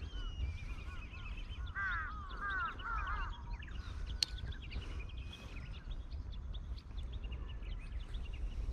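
Wild birds calling, with a run of quick repeated arching chirps about two seconds in, over a steady low rumble. A single sharp tick sounds about four seconds in.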